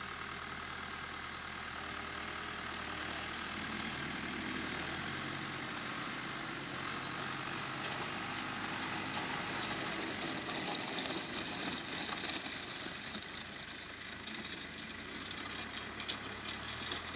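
Diesel farm engines running steadily: a front-loader tractor carrying a round hay bale and a truck hauling a load of round bales. A hiss grows louder about ten seconds in.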